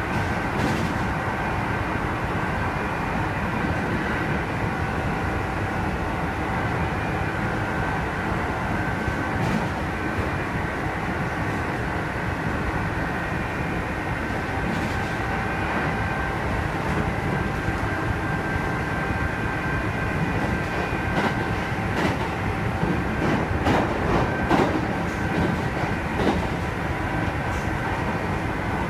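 Kintetsu 2610 series train (set X25) running at speed, heard from inside the car: a steady running noise mixing high and low tones, the set's unusual noise. A run of sharp clacks from the wheels comes in near the end.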